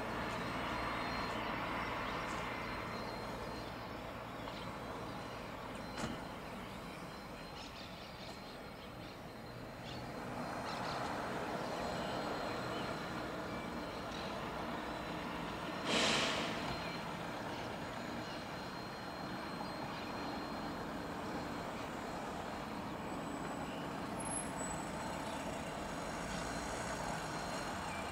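Boeing 777-200ER jet airliner on approach, its engines heard as a steady, rushing rumble that swells again as it comes nearer. A sudden loud hissing burst comes about sixteen seconds in.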